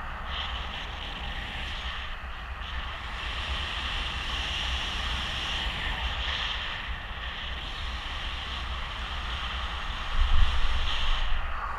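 Wind rushing over the camera's microphone in paraglider flight: a steady noise of moving air, with a stronger gust about ten seconds in.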